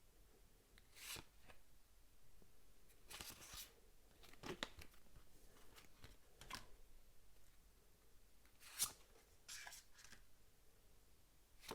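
Faint rustling of game cards being handled and sorted: a handful of brief slides and scrapes, one every second or two, the strongest near the end.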